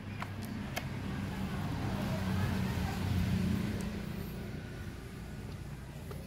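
A passing vehicle's rumble, rising to a peak about three seconds in and then fading away.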